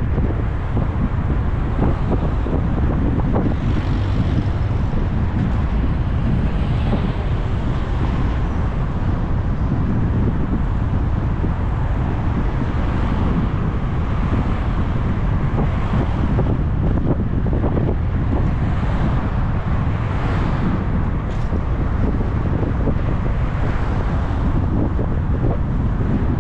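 Steady wind noise buffeting the microphone of a camera riding along on a bicycle, a constant low rumble.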